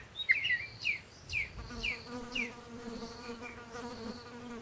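Bee buzzing in a steady drone that comes in about one and a half seconds in, while a bird repeats short falling chirps over the first half.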